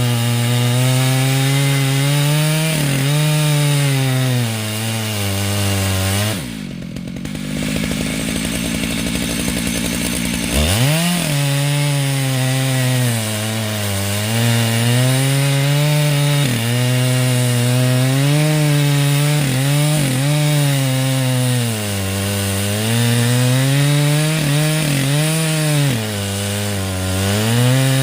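Stihl MS 881 two-stroke chainsaw at full throttle, ripping a Douglas fir log in a chainsaw mill, its pitch sagging and recovering as the chain takes the load. About six seconds in it drops to idle for about four seconds, then revs back up and cuts on.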